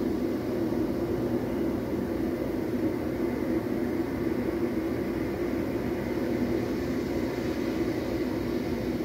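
Ocean waves soundtrack playing through a TV's speakers: a steady rushing surf noise.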